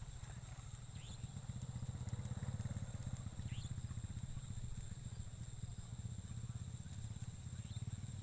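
Outdoor swamp-edge ambience: a low, steady pulsing drone, a thin high steady whine like insects, and three short rising chirps about a second in, midway and near the end.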